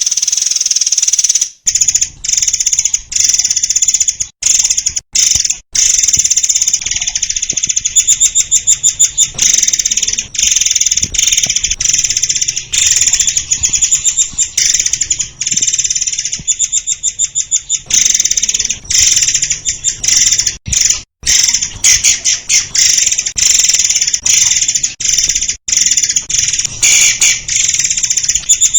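Murai air singing: a long, nearly unbroken stream of rapid, high-pitched chirps and trills, broken only by a few short pauses.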